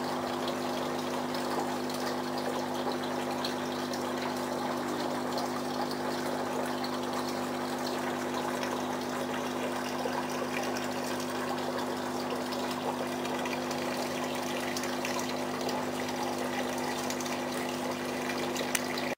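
Aquarium filter pump running: a steady trickle of water over a low, steady hum.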